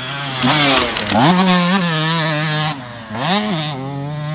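Two-stroke motocross bike engine revving hard. Its pitch climbs, holds, drops sharply about three seconds in, then climbs again as the throttle is worked.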